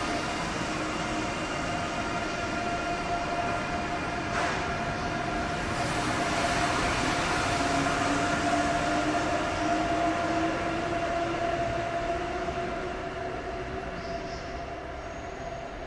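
ICE high-speed electric train pulling out of an underground station, its traction motors whining with a pitch that rises slowly as it gathers speed. It grows louder, then fades as the train runs off into the tunnel, with a single sharp click about four seconds in.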